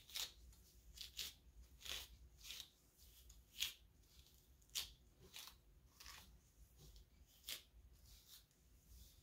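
Hairbrush strokes through a section of tightly coiled hair: faint, crackly swishes about once a second, a few of them louder.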